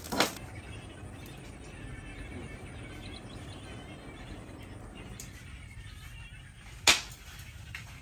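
Two sharp knocks, a weaker one at the start and a louder one about seven seconds in, over a steady low hum with faint bird chirps.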